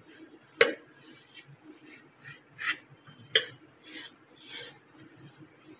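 Hand rubbing and mixing a dry wheat flour and gram flour mix in a steel bowl: a soft, repeated rasping. A few sharp clicks on the steel bowl, the loudest about half a second in.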